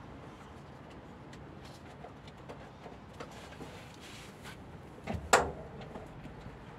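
Small clicks and scrapes of hands handling car electrical parts, then one sharp metallic click a little over five seconds in.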